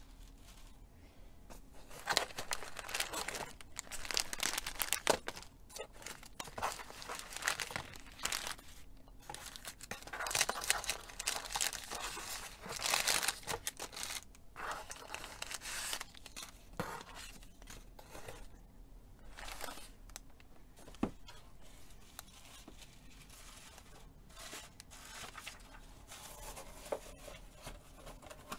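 Paper treat bags and tissue paper rustling and crinkling as they are handled and lifted out of a cardboard box, in irregular bursts that are busiest in the first half and thin out later.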